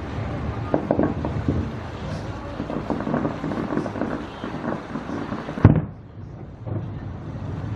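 Fireworks display going off: a dense run of bangs and crackles, with one sharp, loud bang about three-quarters of the way through.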